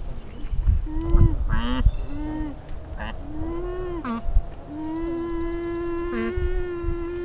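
Alpacas humming around a newborn cria: several short rising-and-falling hums, then one long steady hum starting about five seconds in.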